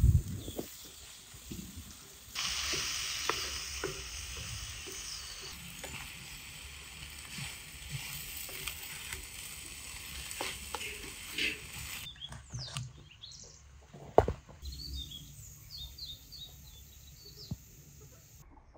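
Minced meat and chopped greens sizzling in a frying pan while a wooden spatula stirs them, with scattered scrapes and taps of the spatula on the pan. The sizzle starts about two seconds in and drops away about two-thirds of the way through.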